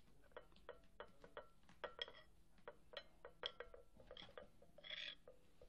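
Faint, irregular clinks and clicks of a metal spoon against a china plate while a kitten eats soft food from it, with a brief scrape about five seconds in.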